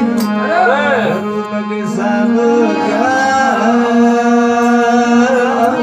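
Male voice singing a Rajasthani devotional bhajan in long, wavering melismatic notes over the steady drone of a plucked vina (tandura).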